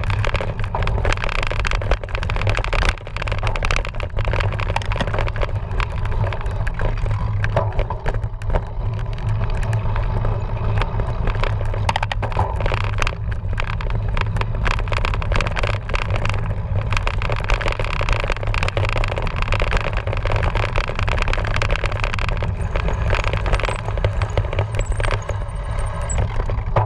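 Steady wind rush on the microphone and the rattling and crunching of a cyclocross bike ridden over rough ground, with a thin high squeal near the end.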